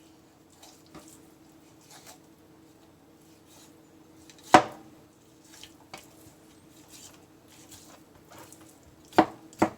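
Knife work on a raw whole chicken on a cutting board: soft handling and cutting sounds over a faint steady hum, with a sharp knock on the board about four and a half seconds in and two more in quick succession near the end.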